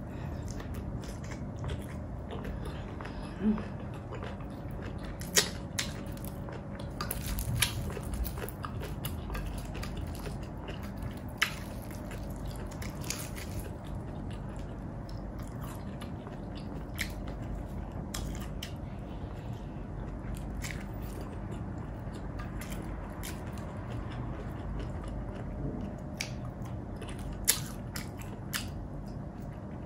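A person chewing and biting food, with scattered sharp clicks and a few louder smacks, over a steady low hum.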